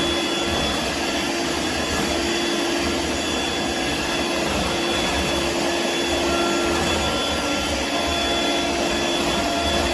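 Dirt Devil Vibe corded stick vacuum running steadily: an even rush of air with a steady motor tone.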